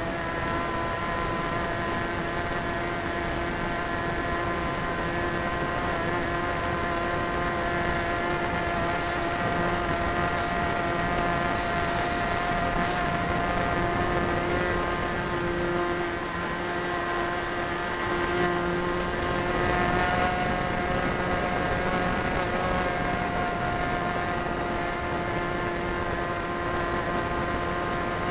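Super Tigre 90 two-stroke glow engine on an RC Ugly Stick plane running at high throttle in flight, a steady buzzing note with small shifts in pitch, over wind rush on the tail-mounted camera.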